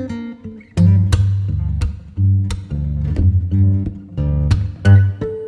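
Background music: a guitar playing plucked and strummed notes over a recurring low bass note, in a steady rhythm.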